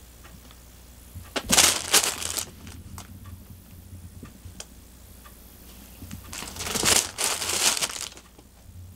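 Fabric cat tunnel rustling and crinkling as a cat pounces into it and scrabbles at the toy inside. It comes in two loud bursts, one about a second and a half in and one near the end, with faint ticks between them.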